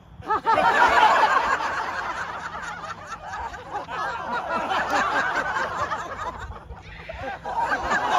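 A group of women laughing together, many voices overlapping, with a short lull about seven seconds in before the laughter picks up again.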